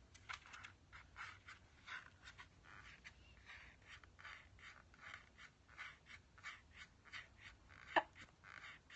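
Faint, breathy whispered laughter: short panting puffs at about two to three a second, with one brief high squeak near the end.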